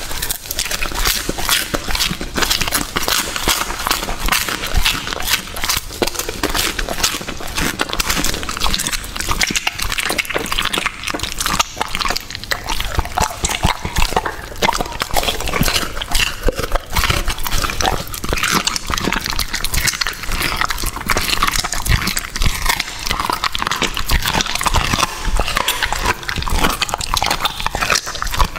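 A dog chewing raw fish, meat and cartilage close to the microphone: a dense, unbroken run of crunches and clicks.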